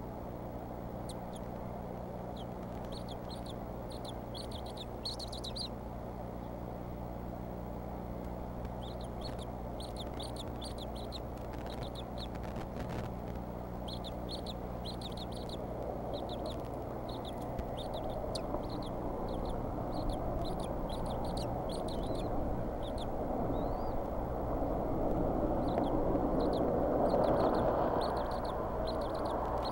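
Runs of short, high chirps, several notes a second, coming in groups every few seconds: bald eagle eaglets calling while an adult feeds them. Under them runs a steady low hum. A rushing noise swells through the second half and peaks near the end.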